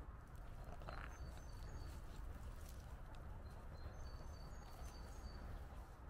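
Footsteps of a walker on a path over a steady low rumble, with faint short high chirps of small birds about a second in and again in a cluster from about four seconds in.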